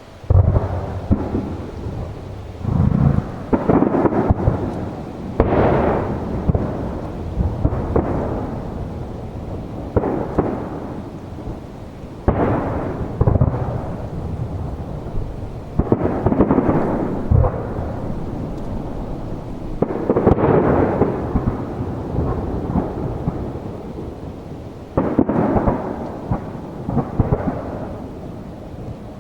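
Aerial fireworks shells bursting one after another, a boom every second or two, each trailing off in a rumbling echo; the barrage starts suddenly just after the beginning.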